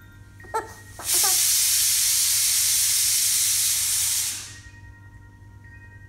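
Pressure cooker whistle: a loud, steady hiss of steam venting through the weight valve that starts about a second in, holds for about three seconds, then dies away.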